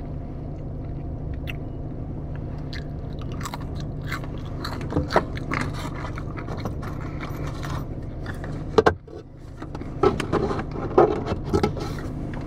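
Close-up eating sounds: biting, chewing and scraping as hummus is scooped and eaten, over a steady low hum. The scrapes and crunches come loudest and thickest from about nine to eleven seconds in.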